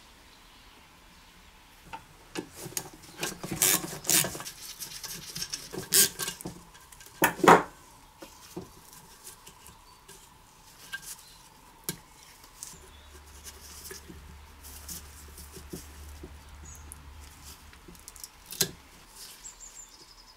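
Socket wrench and small metal parts clicking and clattering against a small engine's cast housing while its ignition parts are unbolted. A busy run of knocks in the first several seconds, the loudest about seven and a half seconds in, then scattered lighter clicks.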